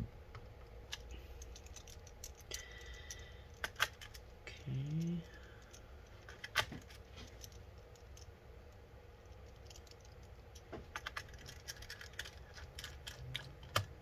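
Small screws being picked up and driven back into a laptop with a screwdriver: scattered light clicks and ticks, with a few sharper clicks.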